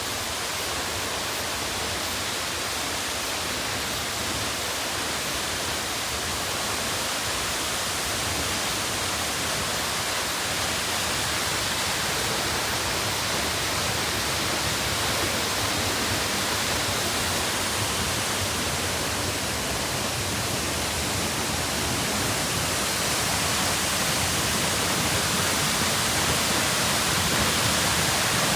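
Waterfall's steady rush of falling water, growing slightly louder toward the end.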